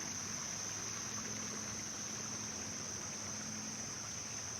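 Steady, high-pitched chorus of insects, crickets by their sound, with a faint low hum underneath.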